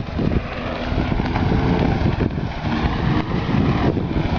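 Moving boat heard as a steady rush, with wind buffeting the microphone.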